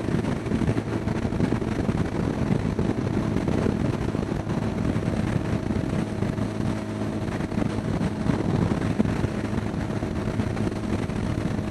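1975 Honda Gold Wing's flat-four engine running steadily at road speed, with wind rushing over the helmet microphone.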